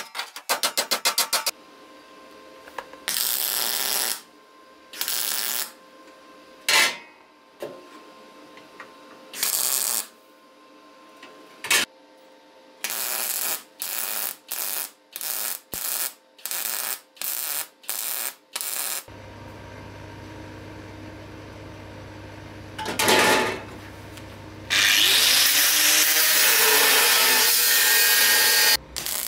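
A hammer beating sheet steel with quick blows at the start, then a welding arc crackling in a series of short bursts of a second or two each. Near the end an angle grinder grinds the steel for about four seconds.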